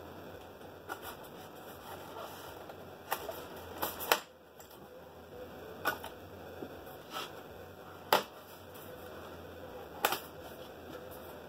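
White styrofoam packing blocks being pulled from a foam shipping box and handled, giving scattered sharp clicks and knocks, the loudest a little after four seconds and about eight seconds in.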